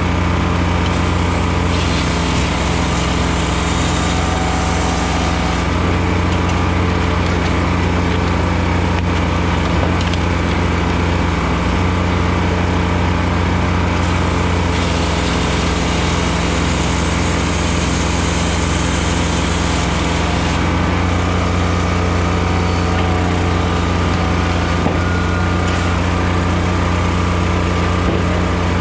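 Blockbuster Jr. firewood processor running steadily under load while it splits softwood, the engine droning throughout. A louder hiss rises over the drone twice for a few seconds.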